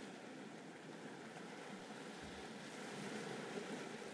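Faint, steady rushing of wind and sea waves, an even noise with no distinct events.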